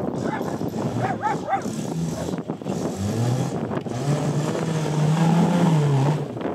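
Off-road trial buggy's engine revving hard under load as it climbs a steep rocky slope. The revs rise about three seconds in and are loudest near the end.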